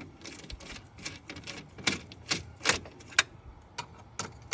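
Hand ratchet wrench clicking in irregular runs as bolts are undone under a car, with a few sharper metallic clicks and clinks.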